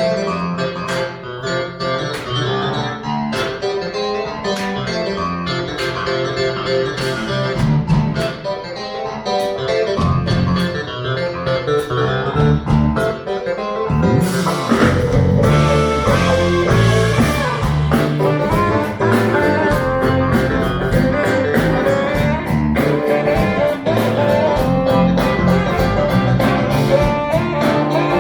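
A live band playing an instrumental opening, led by guitar over a steady beat. It grows fuller and louder about halfway through.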